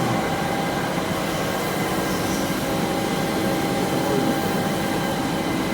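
JohnFord TC-75 CNC lathe running: a steady mechanical hum with several steady whining tones held throughout.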